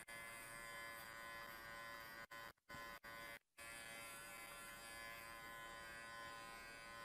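Cordless electric pet clipper with a guide comb running steadily as it trims a small dog's coat: a faint, even buzz. The sound cuts out briefly a few times between about two and three and a half seconds in.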